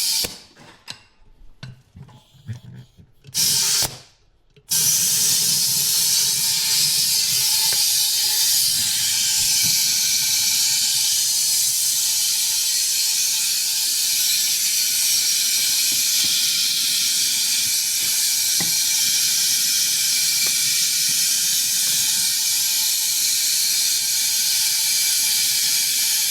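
Compressed air hissing into a lawn mower tire from an air hose to seat the bead: a few short blasts, then one long steady hiss of about twenty seconds that cuts off near the end.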